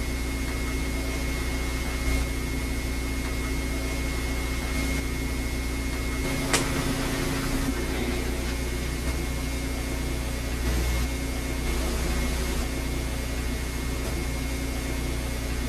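Steady low hum with an even hiss and a faint high whine, with a single sharp click about six and a half seconds in.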